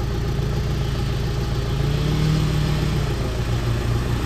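Off-road SUV engine running steadily at low revs, its pitch rising a little about two seconds in and then easing back down.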